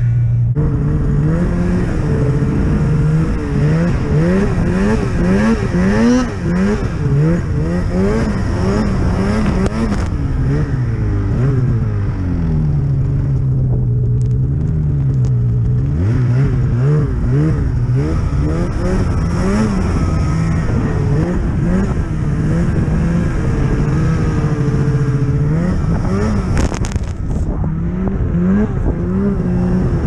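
Snowmobile engine revving up and down over and over as the throttle is worked through deep powder snow. The pitch holds fairly steady near the start, then rises and falls in quick swings for the rest of the time.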